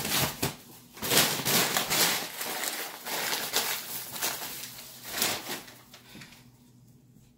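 Plastic grocery bags rustling and crinkling in a run of quick handling noises, fading off near the end.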